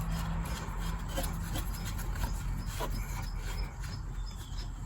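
Light rubbing and scraping of hands turning and fitting a threaded part on an air compressor, with a few faint clicks. A faint low hum runs under it for the first second and a half.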